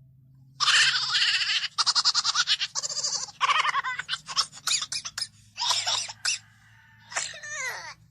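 Meme laughing sound effect: a shrill, high-pitched cackle in rapid pulses, coming in several bouts with short breaks. It starts about half a second in, and the last bout slides down in pitch.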